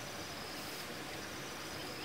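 Insects trilling steadily at a high pitch over a constant background hiss.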